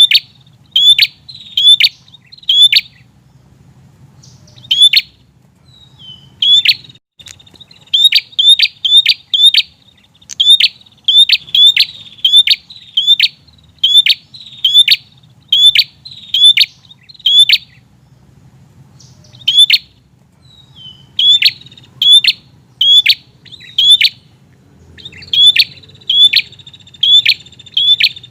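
Prenjak (prinia) calling persistently: a long series of loud, sharp, repeated chip notes, about two a second, in bouts broken by short pauses.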